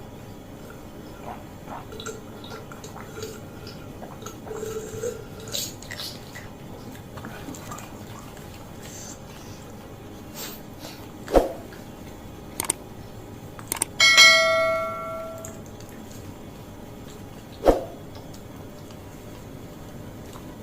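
Small clicks and handling noises of eating, two sharp knocks, and about fourteen seconds in a piece of metal tableware struck once and ringing like a small bell for about a second and a half.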